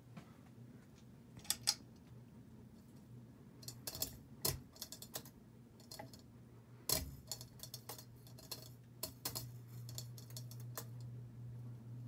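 Hunter Discovery ceiling fan running, its motor giving a steady low hum that grows louder in the last few seconds, with scattered irregular clicks and taps over it.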